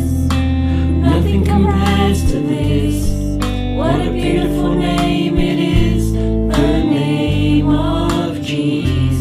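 Contemporary worship song playing: singing over guitar and held low bass notes.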